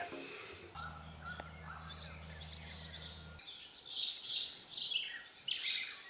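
Songbirds singing, with repeated high chirping phrases and a few clear whistled notes. A steady low hum runs under them and cuts off suddenly about three and a half seconds in.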